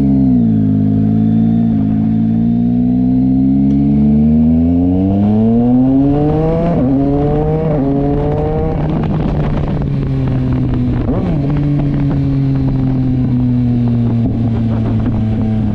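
Yamaha MT-09 motorcycle's three-cylinder engine pulling up through the gears: the pitch climbs, drops briefly at upshifts about 7 and 9 seconds in, then holds a steady cruise.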